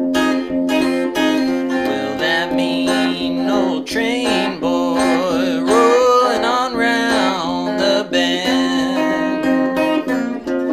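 Acoustic blues guitar played in a steady, driving rhythm over a repeated drone bass note. From about two seconds in to about nine seconds, a bending, wavering melody line rides on top.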